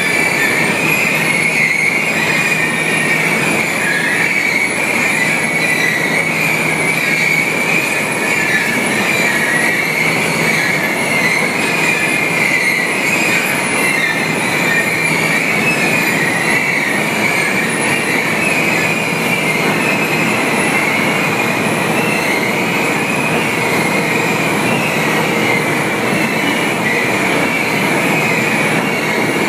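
Continuous barge unloader running in a grain barge, its bucket elevator scooping grain: a constant rushing noise with a steady high-pitched metallic squeal on top.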